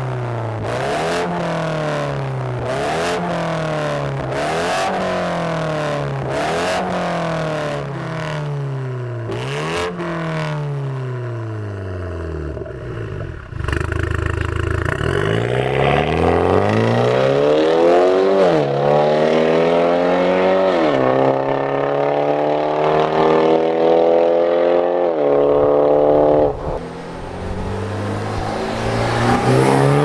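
BMW 530i's B48 turbocharged four-cylinder through a Fi Exhaust valvetronic catback with the valves open, revved in a series of quick blips that rise and fall. It then drops back before longer, louder revs climb and fall. Near the end it picks up again as the car moves off.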